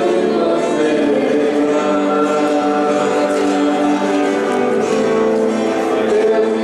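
A group of voices singing a slow religious hymn together, in long held notes.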